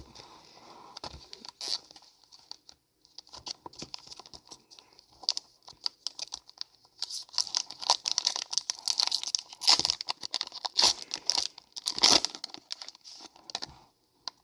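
Foil wrapper of a Pokémon booster pack being torn open and crinkled in the hands. The crackling is irregular and busiest in the second half.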